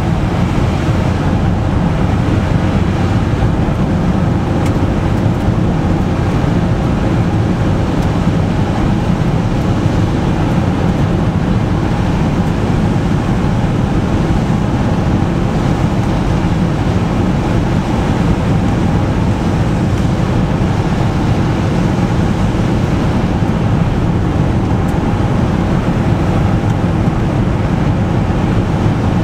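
Car driving on a snow- and slush-covered road, heard from inside the cabin: a steady low rumble of engine and tyres with road hiss.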